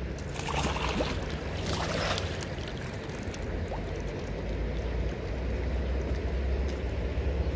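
A hooked trout splashing at the surface for the first couple of seconds as it is drawn to the landing net, over the steady rush of the flowing river.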